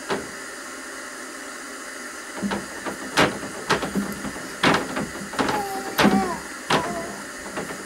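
A young child in the nursery making a banging noise: irregular sharp knocks, roughly one a second, starting a couple of seconds in, with a few brief small voice sounds between them.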